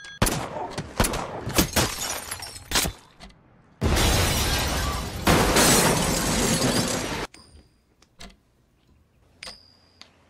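Several sharp cracks and knocks. Then, about four seconds in, a loud car crash: a car is hit side-on, with crumpling metal and shattering glass for about three seconds before the sound cuts off abruptly.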